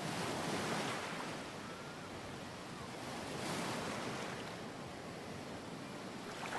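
A soft, even rushing noise like surf, swelling near the start and again around the middle.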